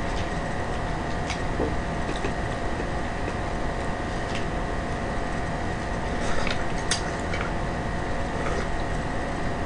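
Steady hum and hiss of room noise, with a few light clicks and crinkles as dishes and food packaging are handled, the sharpest about seven seconds in.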